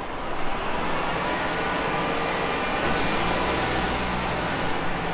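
A small Daihatsu kei van's engine running at low speed close by, a steady low hum that is strongest a little past halfway through.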